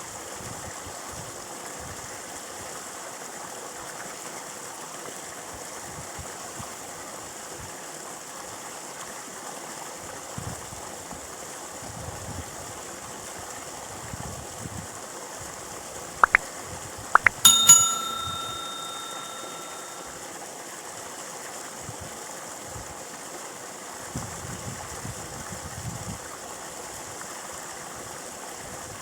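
A small metal bell rings once, struck sharply after a couple of quick clicks and ringing out for about two seconds, over a steady rushing noise like running water.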